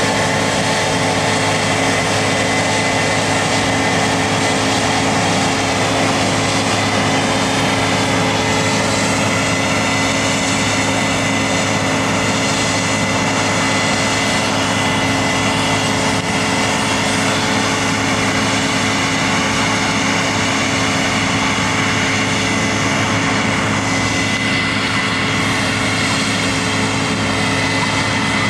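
Case IH Axial-Flow combine harvester running steadily while harvesting: a continuous machine drone from engine and threshing gear, with a steady high whine above it.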